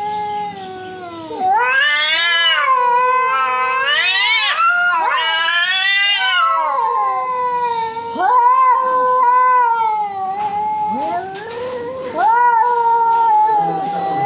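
Domestic cats caterwauling at each other in a fight standoff: long, drawn-out yowls that waver up and down in pitch and overlap. They swell into louder, higher wails several times.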